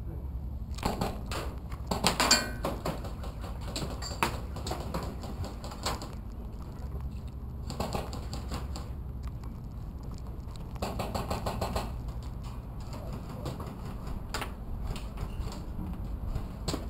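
Footsteps crunching on a dirt and straw floor, with rustling and small knocks from clothing and gear as a person creeps along; the crunching comes in a few denser spells, about two seconds in, near the middle and around eleven seconds.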